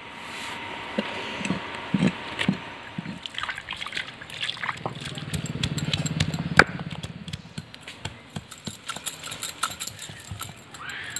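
Stone roller crushing and grinding garlic cloves, onion and ginger on a flat grinding stone (sil-batta): irregular knocks of stone on stone, with a stretch of rough grinding about five seconds in that ends in a sharp knock.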